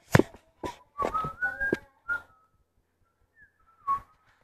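A loud sharp knock, then short high-pitched squeals and cries from the children playing, some sliding upward in pitch and one falling away near the end, with another short knock about four seconds in.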